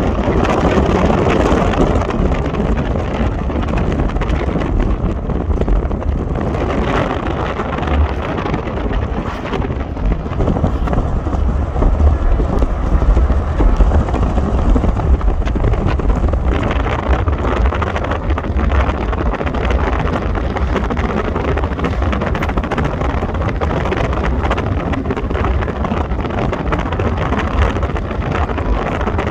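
Steady rumble and road noise of a car driving, with wind buffeting the microphone.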